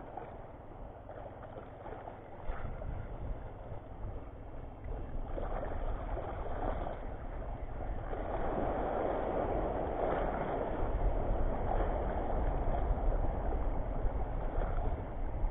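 Wind noise on the microphone over small waves washing across a shallow reef flat, getting louder a few seconds in, with a low rumble of wind building toward the end.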